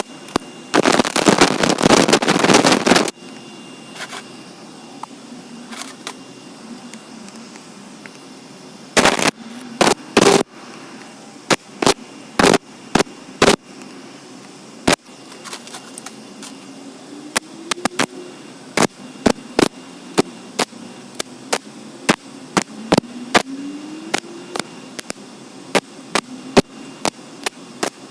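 Sharp knocks in a rapid run lasting about two seconds, then single sharp clicks or taps about a second apart.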